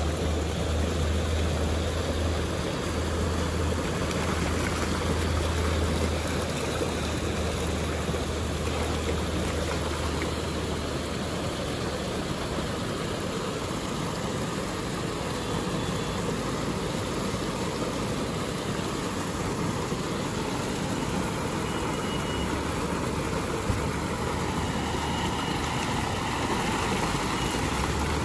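Steady rush of water flowing through a concrete trout raceway, with splashing as a wire dip net is dragged through the water and trout thrash in it. A low hum runs underneath, dropping out through the middle stretch.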